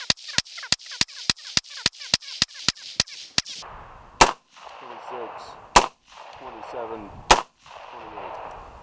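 Suppressed AR-style rifle fired in quick semi-automatic shots, about three a second, each shot trailed by an echo. About three and a half seconds in, the pace slows to three louder single shots about a second and a half apart, with a hissing noise between them.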